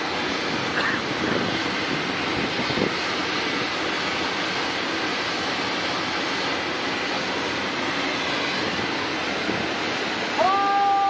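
Steady rushing outdoor noise at a constant level, with a short held voice-like call near the end.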